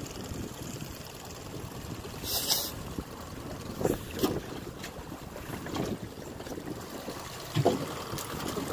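Wind buffeting the microphone over choppy water, with a short hiss about two seconds in and several dull knocks on the boat, the loudest near the end.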